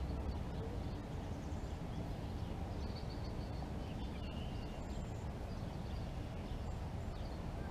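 Lakeshore ambience: a steady low rumble with faint, short bird chirps now and then.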